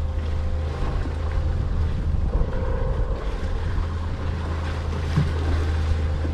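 Boat engine running steadily at low revs, with wind buffeting the microphone and water noise around the hull.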